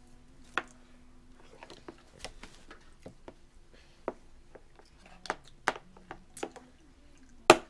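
Scattered taps and knocks of a plastic cup and spoon against a plastic high-chair tray as a toddler handles them, more frequent in the second half, with one sharp loud knock near the end.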